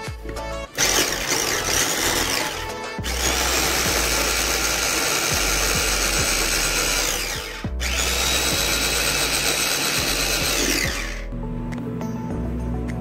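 Small electric food chopper running in three bursts, the second the longest, as it crushes graham crackers into crumbs. Each burst stops abruptly.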